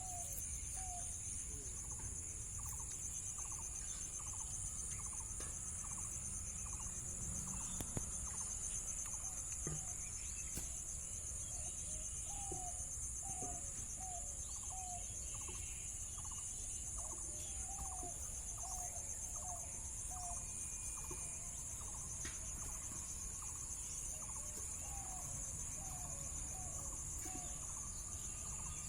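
Crickets or other insects chirring steadily, with a bird giving several runs of short, slightly falling calls, three to five in a row.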